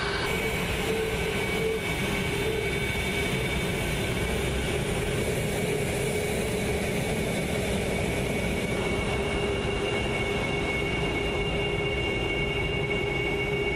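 F-22 Raptor's twin Pratt & Whitney F119 turbofan engines running steadily as the jet rolls along the runway: a constant whine over a dense rumble.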